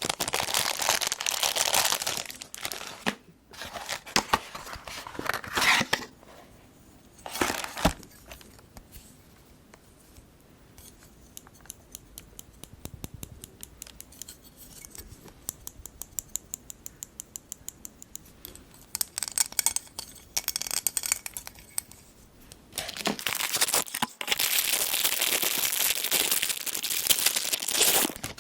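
Packaging being unwrapped up close: plastic and paper crinkling and tearing, then a quieter run of small sharp clicks for several seconds, then more loud crinkling and tearing near the end.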